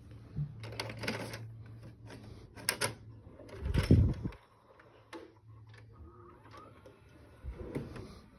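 A VHS cassette being handled and pushed into a VCR: plastic clicks and rattles, a loud thud about four seconds in, and a low steady hum from the machine with more small clicks of the loading mechanism.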